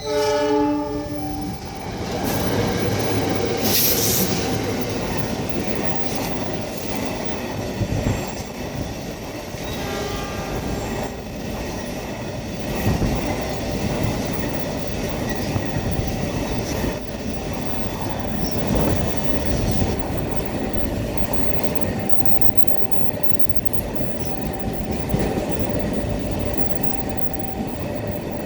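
A train running along the track, its wheels clacking over the rail joints, with a short falling run of tones in the first second or so.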